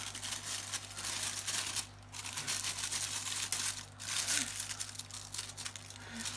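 Plastic oven bag crinkling and rustling as it is handled and opened, in crackly stretches with brief pauses.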